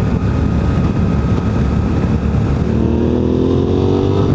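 Suzuki V-Strom 800DE's parallel-twin engine running while riding, its pitch rising as it accelerates from about three seconds in.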